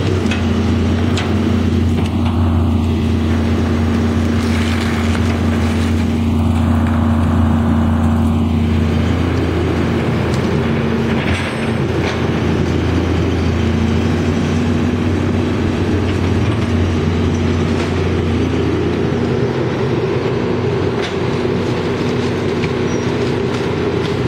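A Caterpillar excavator's diesel engine running steadily with a low hum, with a short knock about eleven seconds in.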